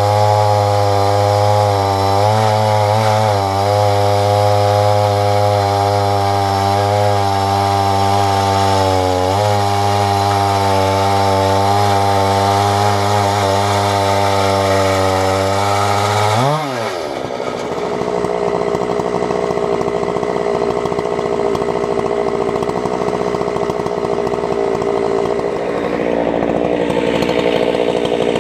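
Husqvarna 372XP two-stroke chainsaw running flat out, ripping through walnut on a 28-inch bar. It holds a steady high engine note at first; about sixteen seconds in the pitch swings sharply and the sound turns rougher and noisier.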